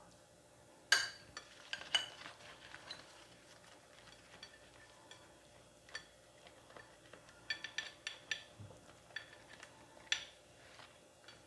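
A spoon clinking sharply against dishes about a second in and again a second later, then light ticks and crackles as a banana leaf is folded over a mound of rice, with a quick cluster of clicks and one more sharp clink near the end.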